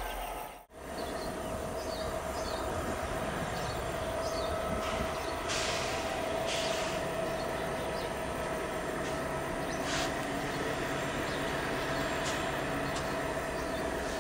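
Two CC 205 diesel-electric locomotives in double traction running as they haul a long coal train slowly along the track, a steady rumble with a held humming tone and a few short high hissy rushes from the wheels and rails. The sound drops out briefly just under a second in.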